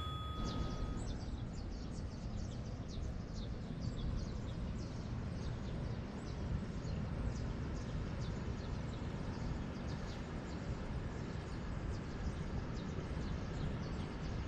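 Many birds chirping in a dawn chorus, a dense scatter of short, quick high chirps over a steady low background noise. The ringing of a chime fades out in the first second.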